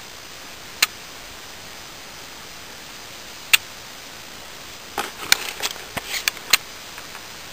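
Handling noise as a hand reaches into a reptile terrarium among rocks and sand: a sharp click about a second in, another midway, then a run of short taps and scrapes near the end, over a steady hiss.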